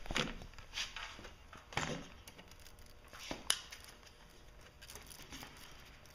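Rubber hose being worked by hand onto an engine's coolant fitting: several bursts of rubbing and rustling in the first two seconds, a sharp click about three and a half seconds in, then fainter handling noise.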